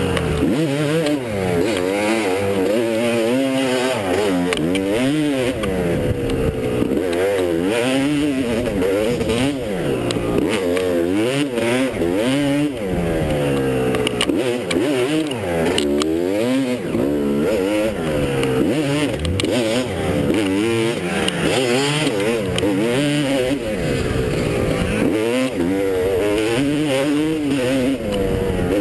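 250 dirt bike engine being ridden hard, revving up and down repeatedly, heard from on the bike. Its pitch rises and falls every second or two.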